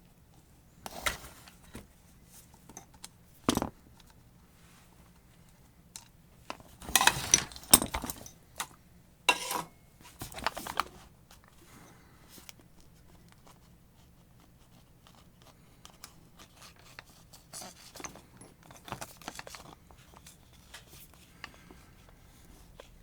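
Small metal and plastic parts of an angle grinder being handled and pried apart during disassembly: scattered clicks, knocks and scraping rustles. The busiest stretch is about seven to eight seconds in, with another burst shortly after.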